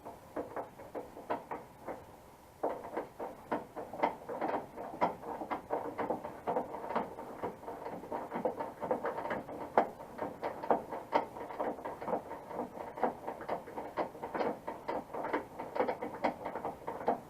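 Dense, irregular clicking and rattling of hand tools and metal door hardware being worked inside a truck door, growing louder a few seconds in.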